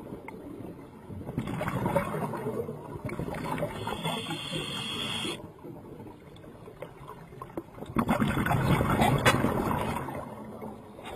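Water sloshing and gurgling in several abruptly cut segments, with a brief band of high hiss in the middle.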